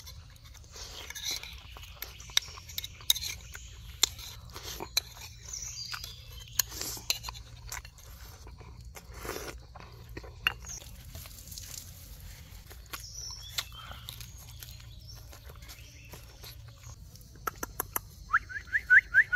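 Food being eaten close up: scattered crunching, cracking and chewing. Near the end comes a quick run of about five short rising chirps.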